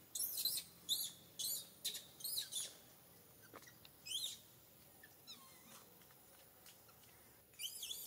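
Infant long-tailed macaque calling for its mother with short, high-pitched squeals, each rising and falling: a quick run of them in the first few seconds, one more a little later, and another burst near the end.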